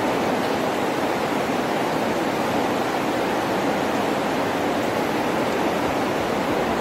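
Rain falling steadily, a constant even hiss.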